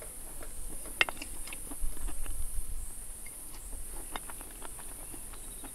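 Steady high-pitched insect chorus, with a few scattered clicks and a brief low rumble about two seconds in.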